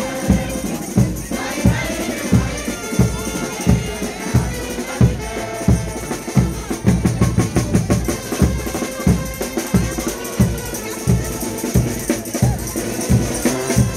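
Frevo street orchestra playing: brass over a steady bass drum beat at about two hits a second, with crowd noise underneath.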